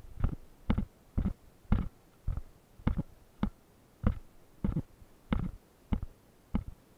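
Footsteps of a person walking at an even pace on gravel and broken concrete, about twelve steps, a little under two a second.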